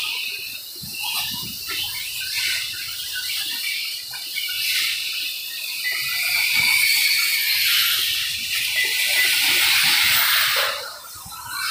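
1/8-scale electric RC buggies racing: the high whine of their electric motors and drivetrains over a steady hiss. It is loudest through the middle and drops away briefly near the end as the cars pass.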